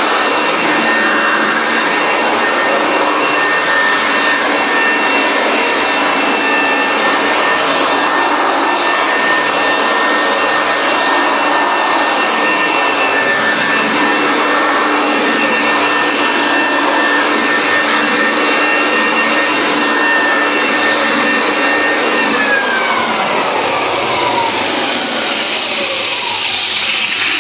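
Electric floor edger running steadily, its sanding disc grinding down a high seam in plywood underlayment, with a high motor whine over the sanding noise. Near the end it is switched off and the whine falls in pitch as the motor spins down.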